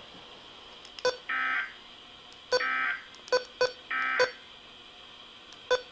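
Three short electronic beeps, each about a third of a second, mixed with several sharp clicks over a faint steady hiss.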